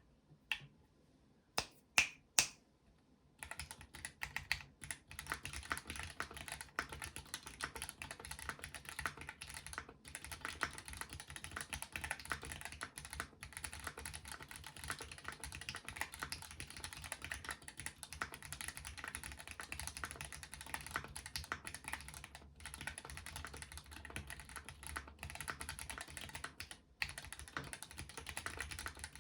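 Mechanical keyboard with Gateron CJ linear switches and GMK ABS keycaps on a gasket-mounted polycarbonate plate in an aluminium case, being typed on. A few single keystrokes come first, then steady fast typing from about three seconds in, with only a few short pauses.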